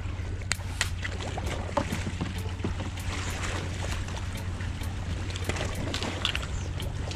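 Steady wash of shoreline water, with scattered small clicks and taps of hands working close by.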